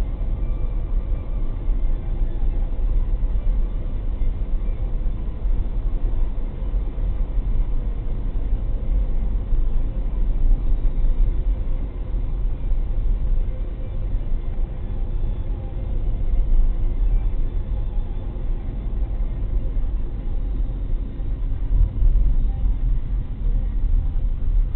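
Steady low rumble of road and engine noise inside a moving car's cabin as the car slows down.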